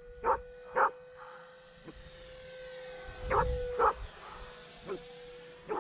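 Arrows Viper 50mm electric ducted-fan RC jet flying past with a steady, thin whine. A dog barks about six times in short calls, the two loudest a little past three seconds in.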